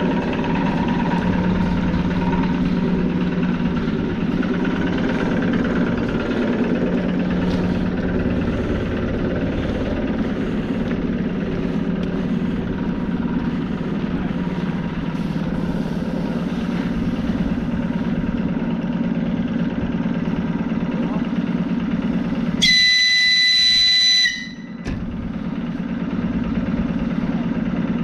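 ER9M electric train's equipment giving off a steady low hum. Near the end the train sounds its whistle once, a loud high-pitched tone lasting about a second and a half.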